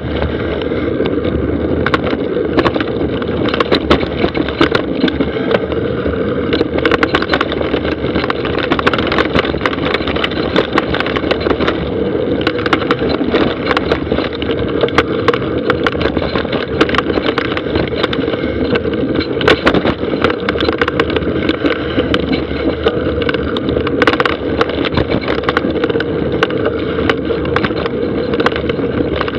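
Mountain bike riding down a dry, loose dirt trail: steady tyre and riding noise with frequent sharp knocks and rattles from the bike jolting over the ground.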